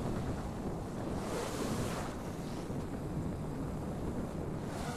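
Wind buffeting the microphone: a steady low rumble, with a brief hiss of a stronger gust about a second and a half in.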